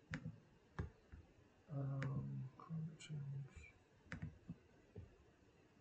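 A few sharp computer mouse clicks, about a second apart, with a brief low murmur of a voice around the middle.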